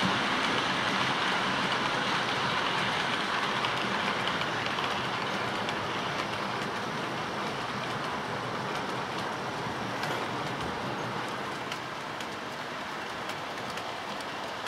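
OO-scale model freight train of bogie hopper wagons running on the layout's track: a steady rattling hiss of wheels on rail that slowly fades as the train moves away, with faint scattered clicks near the end.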